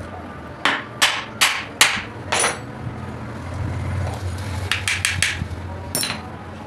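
Hammer strikes: five sharp blows about every half second, then a quicker run of four lighter taps and one more blow near the end.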